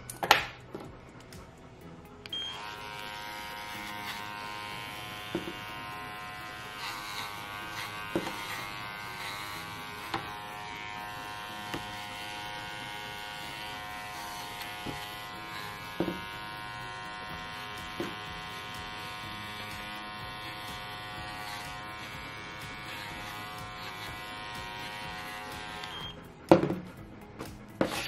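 Cordless electric pet clippers switch on about two seconds in and run steadily while trimming the fur between a dog's paw pads, with a few brief ticks. They switch off shortly before the end, followed by a knock.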